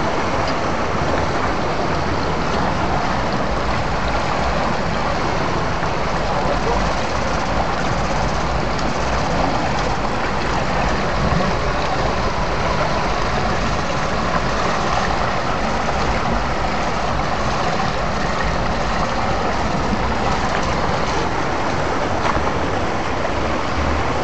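Fast-flowing rocky mountain stream, water rushing steadily over and around boulders.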